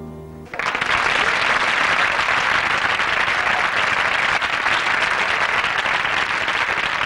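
The band's last held chord cuts off about half a second in, and a studio audience breaks into loud, steady applause.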